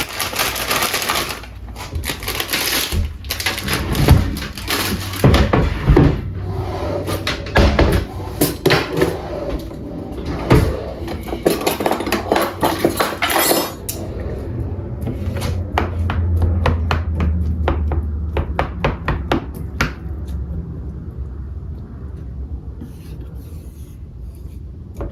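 Dishes and utensils clinking, knocking and scraping as a bowl of instant ramen is prepared, with many sharp taps. About halfway a low hum comes in for several seconds.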